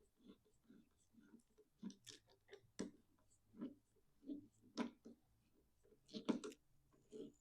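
Faint, scattered clicks and taps of small parts being handled, the loudest cluster about six seconds in.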